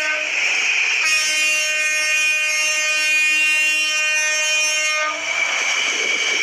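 Toy train's horn sounding one long steady tone from about a second in until about five seconds. Before and after it there is a noisy rush of the toy running on its track.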